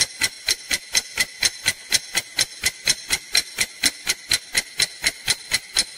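Clock-ticking sound effect, about four sharp ticks a second, keeping time for a countdown timer.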